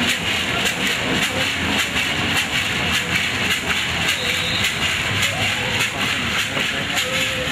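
Gourd rattle shaken in a steady dance rhythm, a dry hissing clatter of seeds or pebbles with each stroke.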